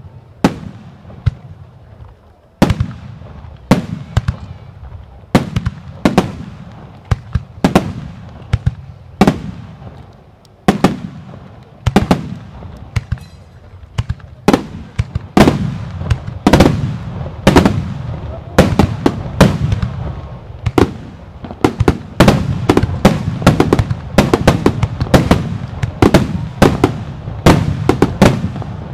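Starmine fireworks: a rapid string of aerial shells bursting in sharp, echoing bangs over a low rumble. The bangs are spaced out at first and grow denser through the second half into a near-continuous barrage.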